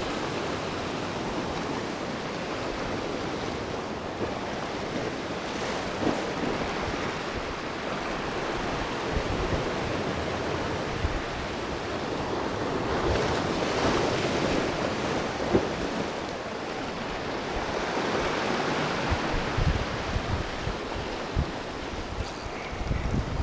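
Sea surf breaking and washing over shoreline rocks in slow surges, with wind buffeting the microphone.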